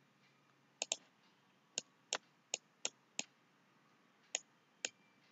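Computer mouse button clicking: about nine short, sharp clicks at uneven intervals, some in quick pairs, as tools are picked and lines drawn.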